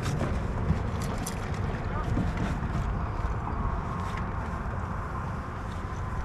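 Bass boat motor running steadily, with wind buffeting the microphone and a few light clicks.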